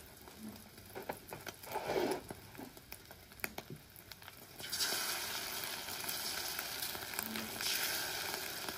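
Egg omelet sizzling in hot oil in an aluminium wok, with light clicks and scrapes of a metal spatula against the pan. The sizzle becomes much louder and steady a little past halfway.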